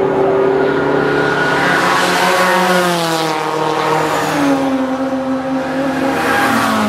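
Racing cars at full throttle passing by on a fast stretch of track; the engine note climbs and then drops as a car goes past about three seconds in, with another fall in pitch near the end.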